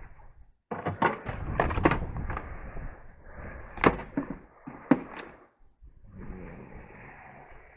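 Rummaging through a truck toolbox: items clattering and rustling as they are moved, with sharp knocks, the loudest about four seconds in and another about a second later, then softer rustling near the end.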